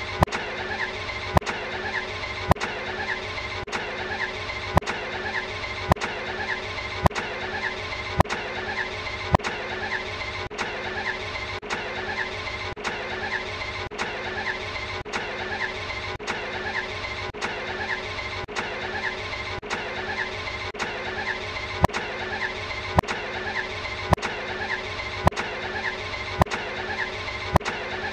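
Ferrari Enzo's V12 engine sound, a clip of about a second looped over and over, with a sharp click at each repeat about once a second.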